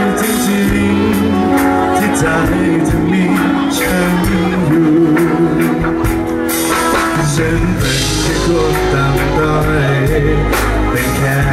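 Male singer singing a Thai pop song live into a microphone, backed by a live band with drums, with steady cymbal and drum hits under the voice.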